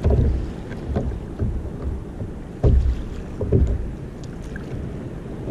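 Small waves slapping against the hull of a sit-on-top kayak in about four low splashes, over steady wind noise on the microphone.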